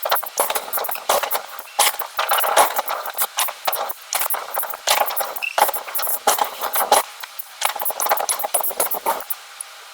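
Rapid, irregular metallic clanking and rattling of heavy forging equipment, stopping suddenly about nine seconds in and leaving a faint steady hum.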